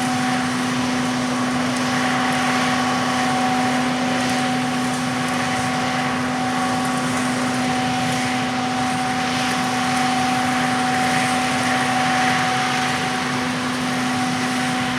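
Peanut harvesting machinery running steadily: a constant engine drone with a fixed higher hum over an even rushing noise. A fainter higher tone in the mix fades out about halfway through.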